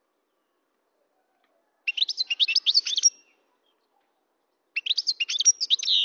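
European goldfinch singing: two phrases of rapid twittering notes, one starting about two seconds in and another near the end, each lasting just over a second.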